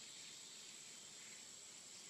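Near silence: a faint steady hiss with a thin, steady high tone.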